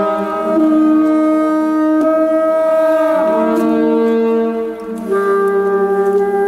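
Two saxophones playing long held notes together, overlapping and changing pitch at different moments every couple of seconds, in a slow improvised duet.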